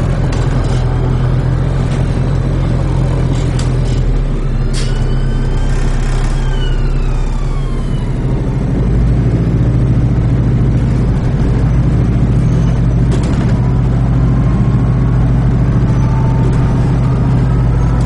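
New Routemaster diesel-electric hybrid double-decker bus under way, heard from on board: a steady low engine drone, with a faint whine that rises and then falls about four to seven seconds in. The drone steps up a little about eight seconds in, with a few sharp clicks and rattles.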